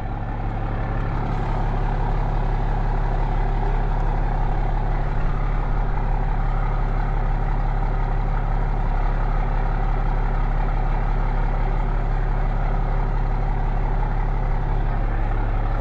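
Truck engine running steadily while it pulls a trailer into position.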